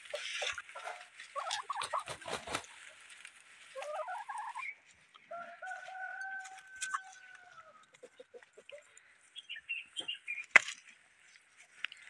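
Desi rooster crowing once, starting about four seconds in: a rising opening, then a long held note that falls slightly at the end, about four seconds in all. Before it, chickens clucking; near the end, a single sharp knock, the loudest sound.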